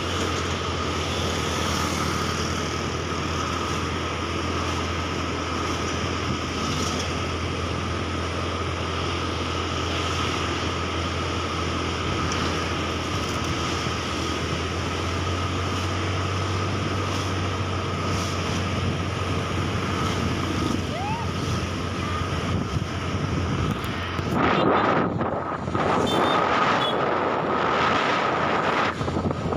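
Motorcycle running steadily at cruising speed with a constant low hum and road noise. From about 24 seconds in, wind buffets the microphone in loud gusts.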